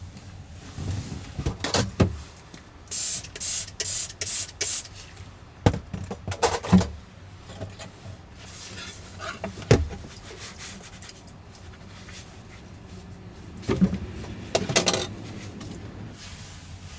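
Handling noises: a series of separate knocks and clicks, with four short hissing bursts about three seconds in and another cluster of knocks near the end.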